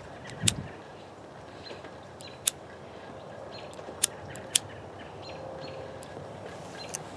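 Lighter clicking as a corn cob pipe is relit: several sharp, short clicks at irregular intervals over a steady background hiss.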